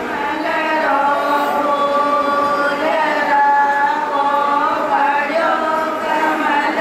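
Voices singing a slow, chant-like song in unison, with long held notes that glide from one pitch to the next.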